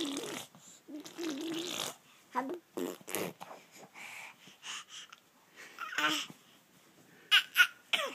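An infant's short babbling sounds and breathy effort noises in irregular bursts as he strains against a pillow, with a couple of sharper cries about seven seconds in.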